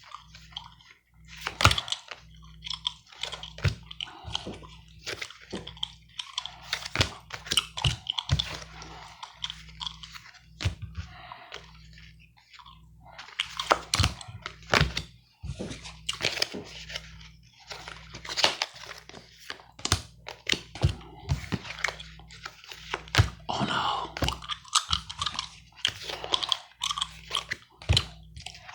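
Gum chewing close to the microphone, a run of irregular wet clicks and smacks, mixed with the rustle and snap of playing cards being handled and laid down.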